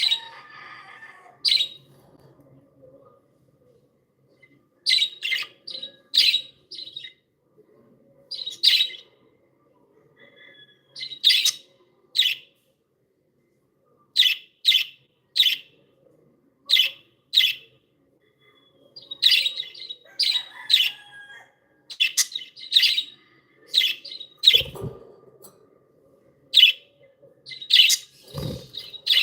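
Pet budgerigars chirping: short, sharp calls, singly and in quick runs of two to four, with short silent gaps between. Two low thumps near the end.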